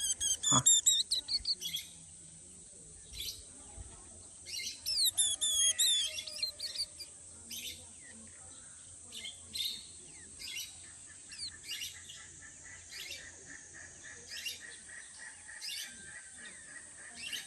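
Young white-eye giving high, rapid begging chirps while being hand-fed. There are two loud bursts of quick twittering, each about a second or two long, at the start and about five seconds in. Scattered single chirps follow.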